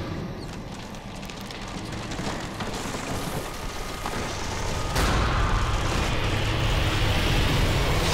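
Trailer sound design: a dense rumbling noise with scattered crackles, jumping suddenly louder about five seconds in and holding there.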